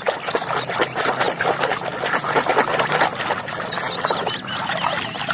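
Water splashing and sloshing, with quick wet clicks and rubbing, as a muddy toy car is scrubbed clean by hand in water.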